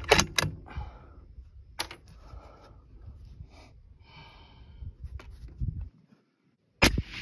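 A 6.5 Creedmoor bolt-action rifle (Daniel Defense Delta 5 Pro) fires once right at the start, a sharp, very loud report that is the loudest sound. Faint clicks and rustles follow, and a second loud bang comes near the end.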